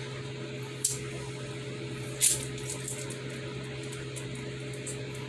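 A steady low hum of room noise, with two brief rustling clicks from handling the packaging or the model: a small one about a second in and a louder one just after two seconds.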